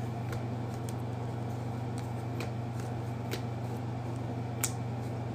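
Faint flicks and clicks of trading cards being handled and shuffled through, over a steady low electrical hum.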